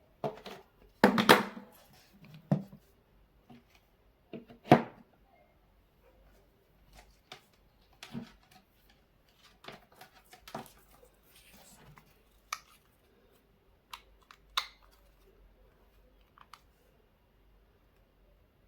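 Scattered plastic clicks and knocks from handling a cordless drill battery and its charger adapter as they are connected, with the loudest knocks about a second in and again just under five seconds in. No drill motor runs.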